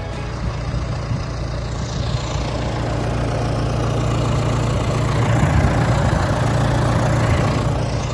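A vehicle engine running steadily, growing louder past the middle and easing off near the end.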